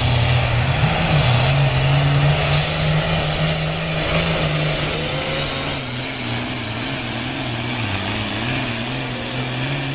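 Super farm pulling tractor's modified diesel engine running flat out under load while dragging the weight-transfer sled. The steady engine note wavers up and down over the last few seconds.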